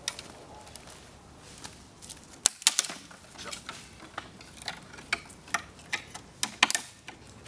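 Dry branches and twigs clicking and snapping as they are handled and moved, a string of sharp irregular cracks, the loudest about two and a half seconds in and again near the end.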